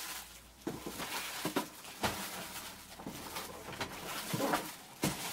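Plastic-wrapped photo umbrellas handled and pulled out of a cardboard box: irregular rustling of the plastic sleeves with light knocks against the box.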